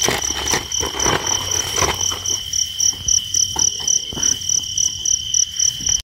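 Night insects chirping in the field: a steady high trill with a second, higher note pulsing about three times a second. Some rustling in the first couple of seconds.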